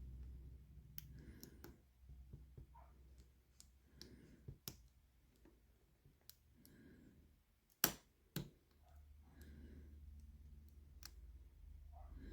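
Lock pick and tension wrench clicking softly in the pin-tumbler core of an old Yale high-security padlock as its spool pins are set one by one. Scattered light clicks, with two sharper clicks about half a second apart two-thirds of the way through.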